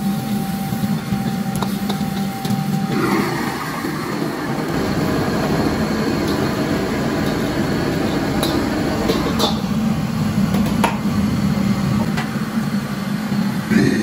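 Steady rush of a commercial gas wok burner under a carbon-steel wok, with beans sizzling as they are stir-fried with a metal ladle. A few sharp clinks of the ladle on the wok in the second half as the beans are scooped out.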